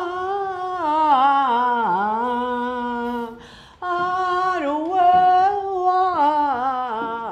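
A woman's solo voice singing a slow melody in long held notes with vibrato, in two phrases with a short break about three and a half seconds in.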